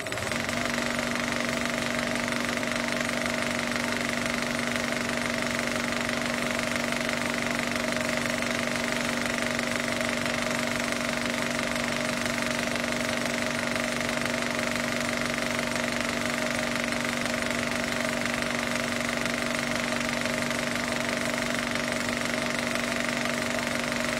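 A steady, unchanging mechanical drone: a low hum and a higher whine over a constant rumbling noise.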